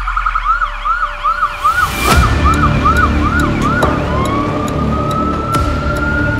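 Emergency vehicle siren in a fast yelp, changing about four seconds in to a slow rising wail, over a low music track with a hit about two seconds in.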